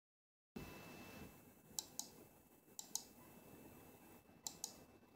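Three quick double-clicks, each pair about a fifth of a second apart, over faint room tone with a thin, steady high-pitched whine; the clicks are a device being operated just before the accompaniment music starts.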